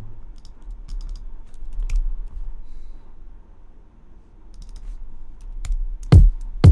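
Computer keyboard typing and mouse clicks as a value is entered in an EQ plugin. Near the end a kick drum sample starts playing back, two loud, deep hits, filtered by a 22 Hz low cut.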